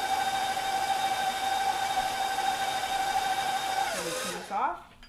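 Bowl-lift stand mixer motor running steadily with a high whine while it beats flour into cookie dough. About four seconds in it is switched off and the whine drops in pitch as it spins down and stops.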